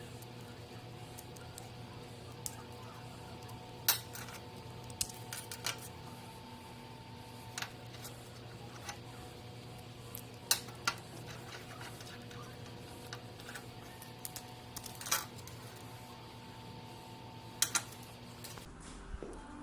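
Irregular sharp metal clinks and taps, a few seconds apart, over a steady machine hum with a few held tones. The hum cuts off near the end.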